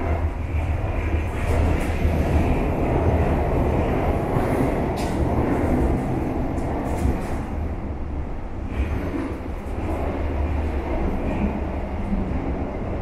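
Shanghai Metro Line 10 train running at speed, heard from inside the passenger car: a steady low rumble of wheels on rail and running gear, with a few brief faint high-pitched noises now and then.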